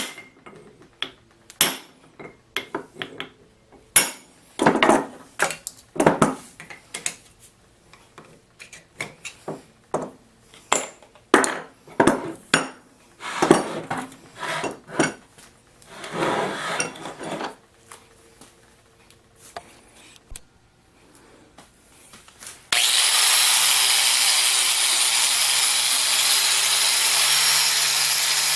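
Hand work on metal in a machine shop: scattered clicks, knocks and short rasping strokes. About 23 seconds in, a power machine starts abruptly and runs steadily with a high whine, typical of cutting metal stock such as aluminum for vise soft jaws.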